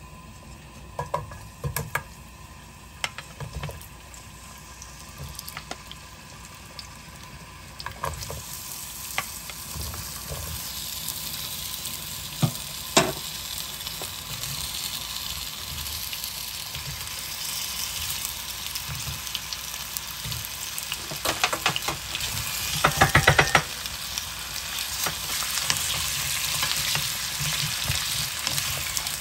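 Raw potato slices frying in oil in a nonstick pan, with a sizzle that starts about eight seconds in and grows steadily louder. A few light knocks come as slices drop into the pan before the sizzle, and a louder clatter near the end as wooden spoons stir and turn the slices.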